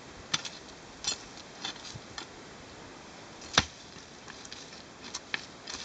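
A pick struck repeatedly into the dirt and the roots of a wild tamarind tree, busting the roots: about eight sharp strikes at uneven intervals, the loudest about three and a half seconds in.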